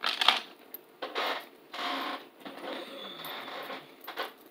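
A makeup brush working powder highlighter, swirled in the compact and swept over the cheek: a few short scratchy brushing strokes.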